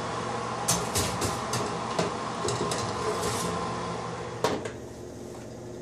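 Metal half sheet tray knocking and clattering as it is slid into a small oven, a string of light knocks and clicks, then one last knock about four and a half seconds in.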